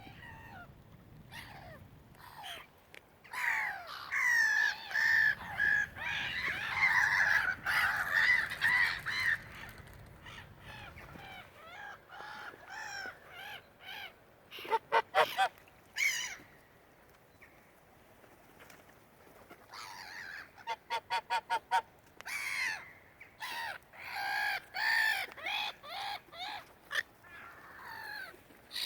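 A flock of geese honking and seagulls calling, overlapping calls coming in bursts. Quick runs of short repeated notes come about fifteen seconds in and again around twenty-one seconds.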